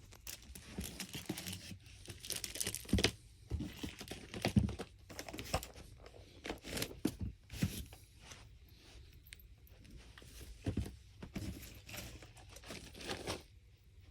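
Irregular rustling, crinkling and light knocks as fireworks packaging and boxes are handled and moved about, close to the phone's microphone.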